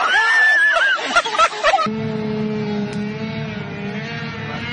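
Excited, high voices with a few sharp knocks. About two seconds in, an abrupt cut to a motorboat engine running steadily at an even pitch.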